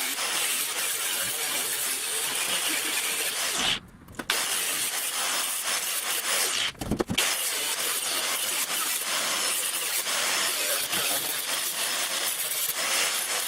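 Power tool cutting a sheet-metal panel, running steadily and stopping briefly twice, about four and seven seconds in.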